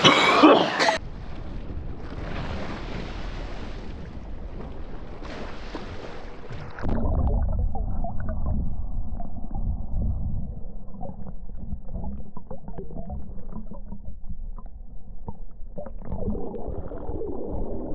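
Muffled hiss, then from about seven seconds in a louder muffled low rumbling with irregular gurgling, like water and a boat motor heard through a sealed or submerged action camera.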